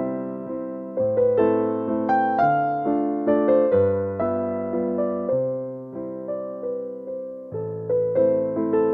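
Background music: a gentle electric piano melody with chords, the notes striking and fading in an unhurried rhythm.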